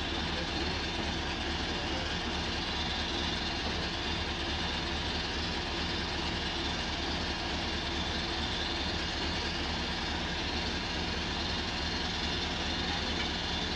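Engine of a truck-mounted water-well drilling rig running steadily, a constant even drone.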